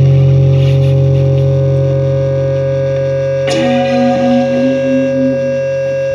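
Amplified guitar: sustained notes ring and slowly fade over a steady low drone, then a fresh pick attack about three and a half seconds in starts a short run of notes.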